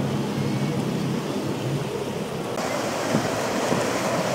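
Twin Suzuki outboard engines running at speed, a low steady drone under the rush of spray, wind and waves; the drone fades about a third of the way in. About two-thirds in the sound changes abruptly to a brighter hiss of wind and breaking water.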